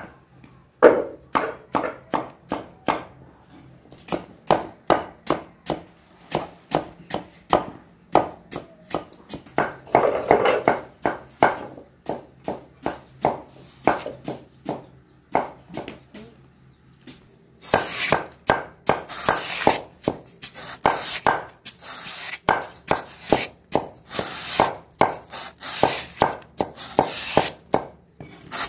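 Knife chopping in steady, evenly spaced strokes, about two to three a second, with a short pause about sixteen seconds in. From about eighteen seconds in the strokes turn sharper and hissier.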